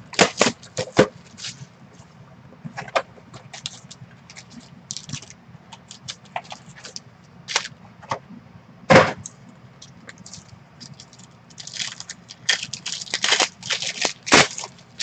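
Foil wrappers of 2020 Panini XR football card packs being torn open and crinkled by hand, in irregular crackles and scrapes that come thickest near the end.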